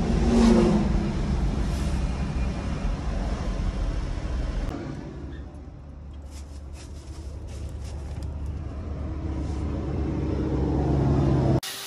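A motor vehicle's engine running with a steady low hum. It is loud at first, dips around the middle, builds again and then cuts off abruptly near the end.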